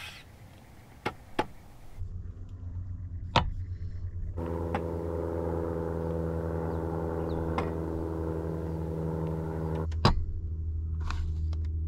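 A few sharp clinks and knocks as metal coffee canisters and a mug are handled and set down on a wooden folding table, the loudest about three seconds in and again near the end, over a steady low hum.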